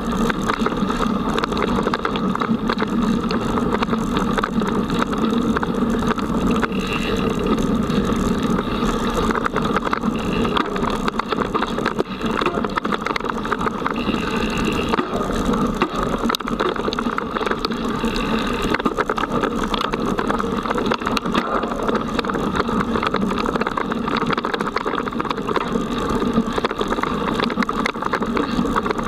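Mountain bike riding fast over a dirt forest trail, heard through a camera mounted on the bike: a steady rumble of tyre and trail noise with the bike and mount shaking, with a few short high tones along the way.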